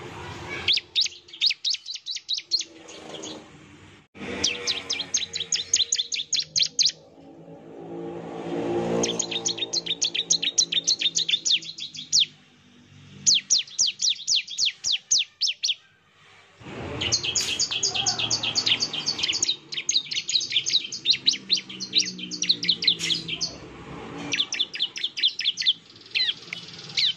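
Bar-winged prinia (ciblek) singing its 'nembak' song: about seven bursts of rapid, high, sharply repeated notes, each lasting two to three seconds, with short pauses between. A fainter low drone sounds underneath at times.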